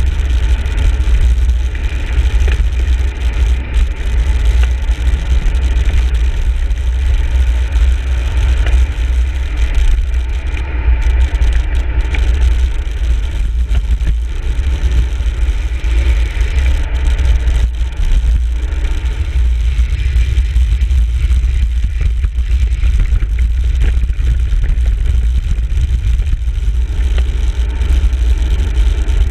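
Steady, loud wind rumbling on the microphone of a handlebar-mounted camera as a road bike rides along a paved road, with a hiss of road and tyre noise above it.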